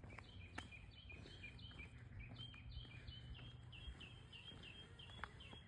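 Faint bird chirping: a quick, continuous run of short, high notes, about four or five a second, over a low outdoor rumble.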